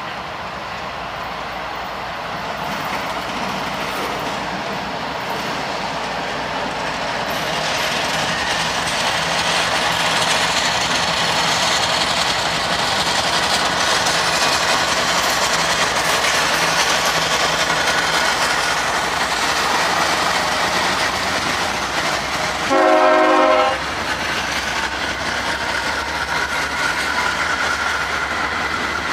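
CSX freight train with two diesel locomotives approaching and passing close by, the rumble growing louder, then loaded gravel hopper cars rolling past with clickety-clack of the wheels. About three-quarters of the way through, one short horn blast of under a second stands out as the loudest sound.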